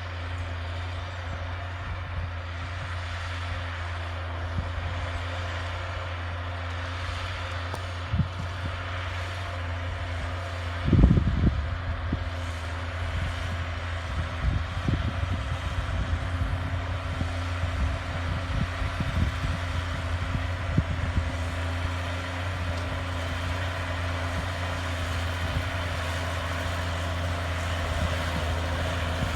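New Holland TM155 tractor's diesel engine running steadily while ploughing, with a brief low thump about eleven seconds in and scattered lighter knocks after it.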